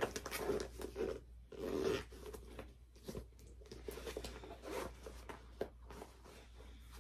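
A canvas handbag being handled and its zipper worked, with rustling and small clicks, loudest in the first two seconds.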